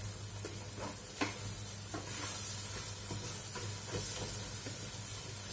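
Wooden spatula stirring and scraping goat curry in a stainless steel pot, with scattered knocks of the spatula against the pot, the loudest about a second in, over a faint sizzle. A steady low hum runs underneath.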